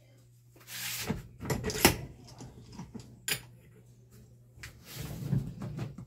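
Handling noises of metal motor parts on a workbench as a fan motor's stamped-metal end cap is set into a bench vise, with a sharp click a little over three seconds in. A low steady hum runs underneath.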